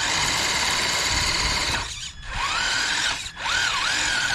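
RC rock crawler's electric motor and gearbox whining under throttle while climbing rocks, the pitch rising and falling with the throttle. It cuts out briefly twice, about two and about three seconds in.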